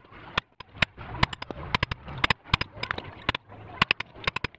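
Wood chisel being struck repeatedly to chop a slot into a wooden board: quick sharp knocks, several a second, coming in short runs.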